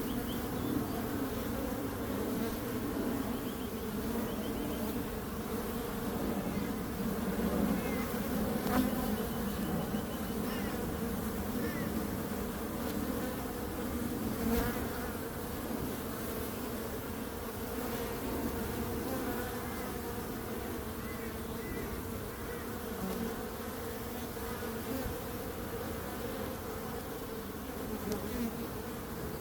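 Many bees buzzing together in a dense, steady hum that swells and eases slightly.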